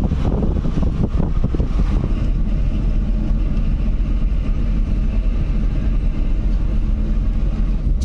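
A car driving, heard from inside the cabin: steady engine and road noise, a little rougher for the first couple of seconds, then even.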